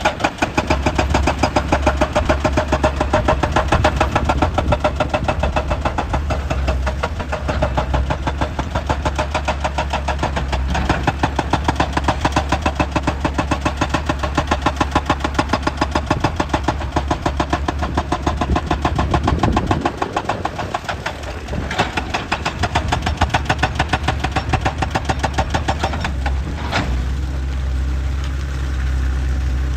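Excavator working, its engine running under a rapid, even knocking that goes on throughout and eases briefly about two-thirds of the way in.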